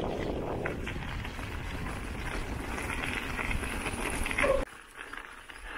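Mountain e-bike riding on a gravel forest road, with a steady rumble of tyres rolling over the gravel. It drops off sharply about four and a half seconds in, as the bike slows to a stop.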